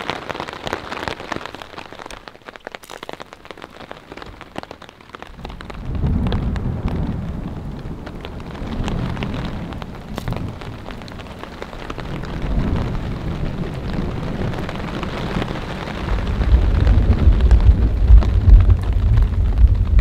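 Rain falling steadily on a tarp shelter, with thunder rumbling. The thunder rolls in about five seconds in, swells again midway, and is deepest and loudest near the end.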